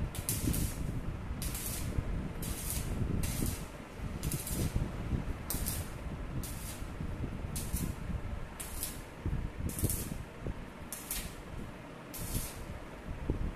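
Stick (arc) welding: the electrode's arc hissing in short bursts about once a second as a knob finial is welded onto a steel bed post.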